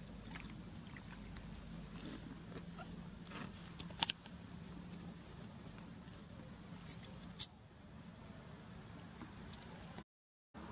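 Faint patter and small splashes of shallow water as macaques move about at the water's edge, with a few sharp clicks about four seconds and about seven seconds in, over a steady thin high-pitched hum.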